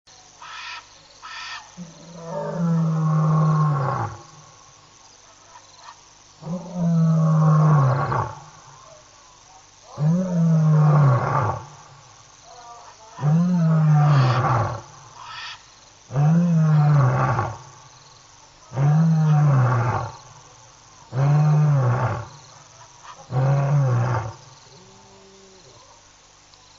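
Lion roaring loud: two long roars, then a run of shorter roars about every two and a half to three seconds, the last one faint.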